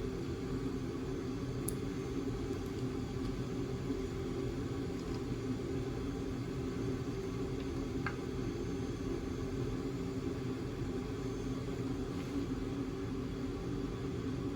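A steady low hum, unchanging, with a couple of faint clicks.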